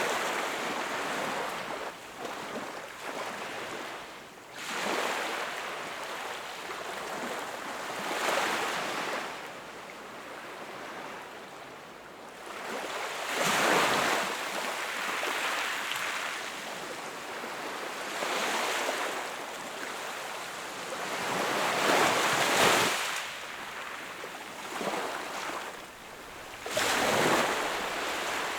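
Sea waves breaking and washing up on a shore, one surge of surf every four to five seconds, each swelling and then fading; the loudest come about halfway through and near the end.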